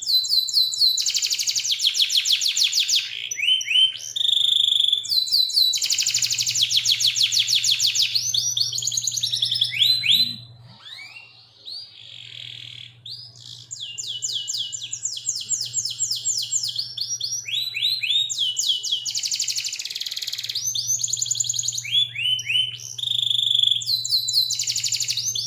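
A young F1 Yorkshire canary singing long rolling trills of rapid repeated notes, with a short pause about ten seconds in before the song resumes.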